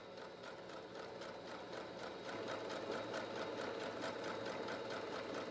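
Electric sewing machine running steadily, sewing a straight-stitch seam across layered fabric, its needle going up and down in an even, rapid rhythm of about five or six strokes a second. It gets slightly louder about two seconds in.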